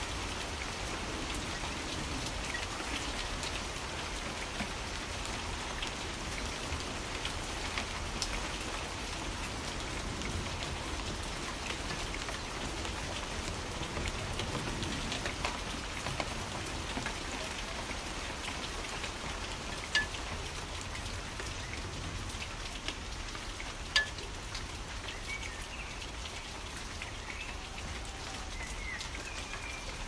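Steady rain falling and pattering on surfaces, with two sharp, louder drop ticks about two-thirds of the way through and a few faint bird chirps near the end.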